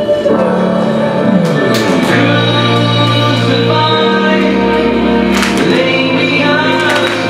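Christian worship song playing: singing over instrumental backing with held low notes that change every couple of seconds.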